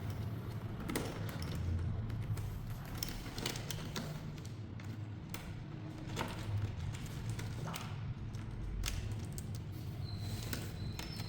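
Scattered light clicks and taps of hands working on a rice cooker's internal wiring, over a low steady hum.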